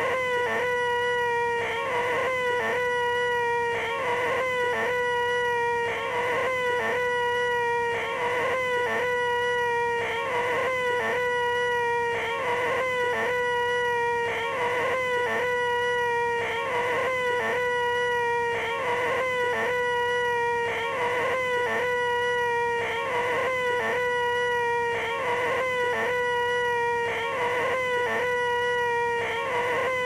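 A man's high, nasal, steady 'eeeeeh' screech: the 'most annoying sound in the world' bit, looped over and over with a brief break at each repeat.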